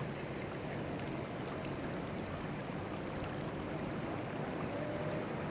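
Floodwater rushing steadily through a wadi in a flash flood.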